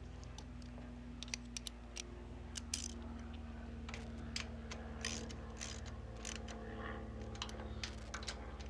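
Socket ratchet wrench clicking in short, irregular runs as a nut is tightened on a riding mower's electric starter.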